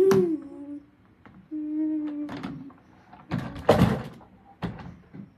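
A child humming to imitate a garbage truck's lift, the pitch wavering up and down, then held steady. About three seconds in comes a loud rushing noise, with shorter noisy bursts around it.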